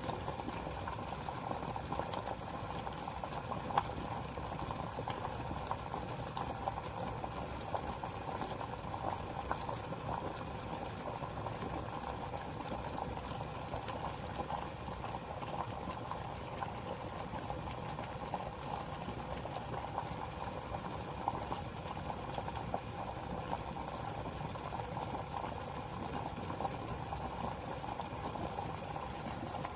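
Water heating to a boil in a Hamilton Beach 40930 glass electric kettle: a steady seething sound with fine crackling throughout.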